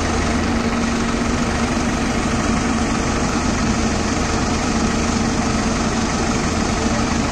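Diesel engines running steadily, with a dense low rattle: a farm tractor idling close by and a Hyundai 210 crawler excavator working.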